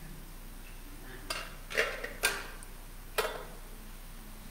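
Collection plates clinking and knocking as they are handed over and stacked: four short, sharp clinks a second or so apart.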